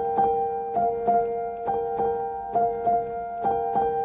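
Background piano music: gentle notes struck in an even, repeating pattern, about three a second, over a held chord.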